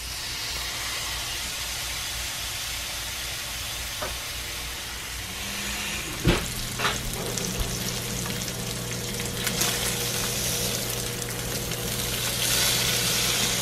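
Bacon sizzling as raw strips are laid into a hot cast-iron skillet, the frying growing louder near the end. A single sharp knock about six seconds in.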